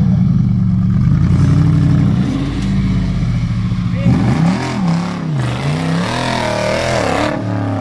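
Off-road vehicle's engine running steadily, then revving up and down repeatedly from about four seconds in, with a loud rushing noise during the revving that stops shortly before the end.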